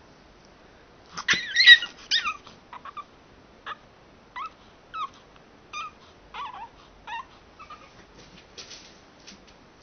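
Pug whining: a loud burst of high cries about a second in, then a string of short whimpers every half second or so, as it tries to wake its owner.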